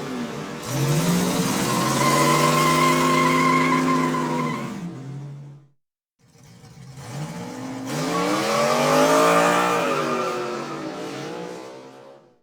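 Two separate car pass-bys, one after the other: each time a car's engine comes up, runs past with its pitch rising and then dropping away, and fades out. The second pass-by shows the clearer pitch drop as it goes by.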